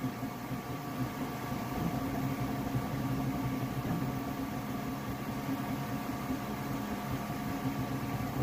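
Flashforge Adventurer 5M Pro 3D printer running mid-print: a steady hum of its fans and motors, with a few constant whining tones over a soft hiss.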